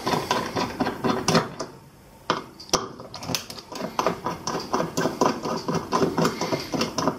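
A screwdriver turning small screws out of the metal casing of a Western Digital desktop hard drive: a rapid run of small metallic clicks and ticks, with a few sharper clicks.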